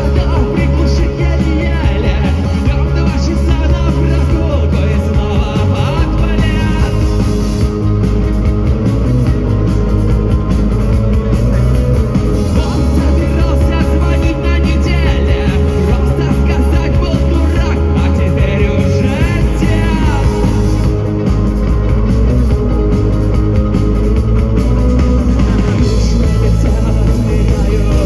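Rock band playing live with a singer, loud and steady.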